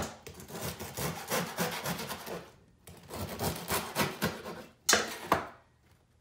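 Serrated bread knife sawing through crusty sourdough bread on a wooden cutting board: rasping back-and-forth strokes in two bouts, followed by two sharp knocks about five seconds in.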